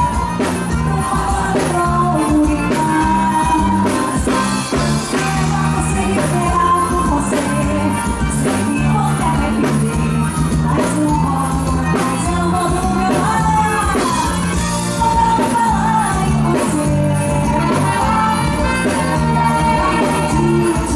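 Live forró band music: a lead melody line over a steady, repeating bass rhythm.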